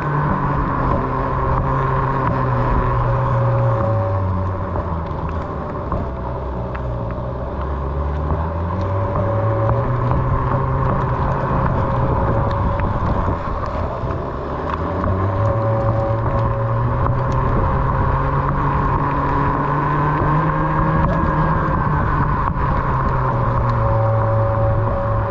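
Onewheel XR's electric hub motor whining as the board rolls, its pitch dipping twice and climbing back as the speed changes, over a steady rumble of tyre and wind noise.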